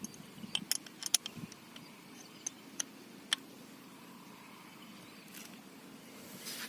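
Sharp metal clicks and clinks of a spanner working the valve flange bolts: a quick run of them about a second in, then a few single clicks. A soft rush of noise comes up near the end.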